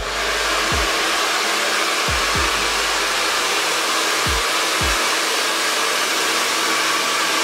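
Hand-held hair dryer blowing hot air over hair, starting abruptly and running at a steady, even rush, to dry a sprayed-on layer of hairspray and set the hair firm.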